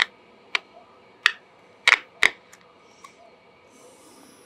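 Irregular sharp clicks, about six of them, from an opened QYT KT-7900D mobile radio as parts on its circuit board are pressed and tapped to find a loose solder joint behind its intermittent audio. A short hiss comes near the end.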